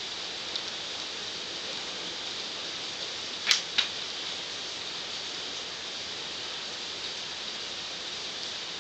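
Steady hiss, broken about three and a half seconds in by two short, sharp rustles of paper cue cards being handled, a third of a second apart.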